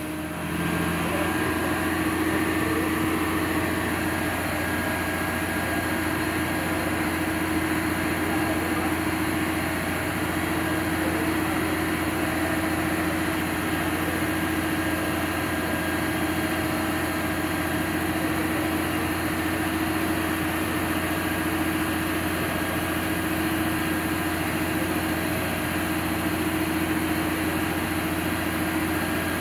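Refuse collection truck's engine idling steadily with a constant hum.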